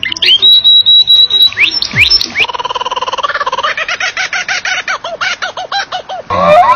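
Bird-like whistled calls: a rising whistle held steady for about a second, a few quick upward-sweeping whistles, then a fast, even trill of repeated notes lasting several seconds.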